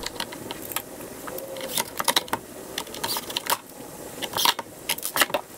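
DeWalt cordless drill-driver run in short bursts, driving screws into the plastic body of a robot mower, with clicks and knocks as the parts are handled.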